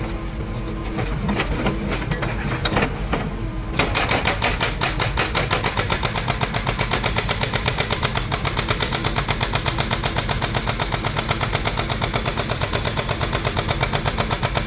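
Heavy construction machine running, with scattered knocks at first. About four seconds in, a fast, even mechanical hammering starts, several blows a second, and keeps going.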